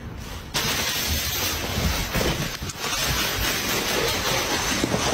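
Plastic bag crinkling and rustling as a cat thrashes about tangled in it, a dense crackle that starts suddenly about half a second in.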